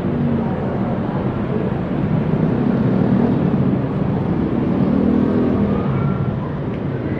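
Steady rumble of vehicle engines, with no sharp events.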